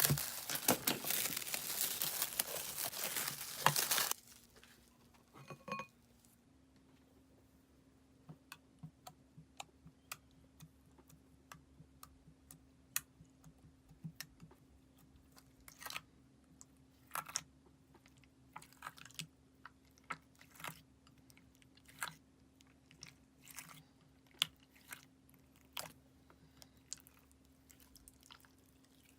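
Clear slime being worked by hand while glitter is mixed in: scattered sticky clicks and pops as it is pressed and stretched. A loud, dense crackling runs for about the first four seconds, and a faint steady hum sits underneath.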